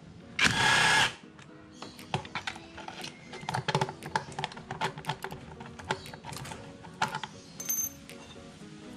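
A socket wrench loosens a bolt on a Yamaha scooter's transmission gear case, with a short harsh burst about half a second in. Then comes a run of small metallic clicks and taps as the bolt is turned out by hand and lifted free. Faint background music runs under it.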